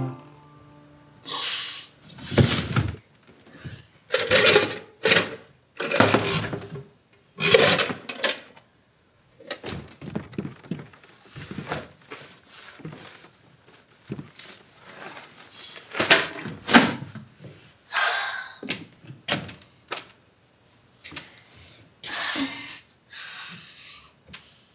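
Short handling noises in a small wooden room, rustles, knocks and thunks a second or two apart, as objects are picked up, set down and packed into a backpack.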